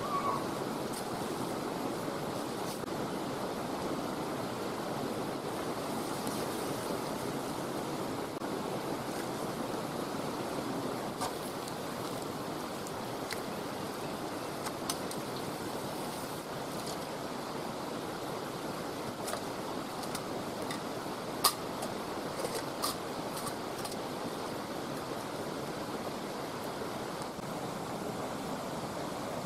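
Steady rush of a nearby stream running under the whole scene, with a few faint clicks on top and one sharper click about two-thirds of the way through.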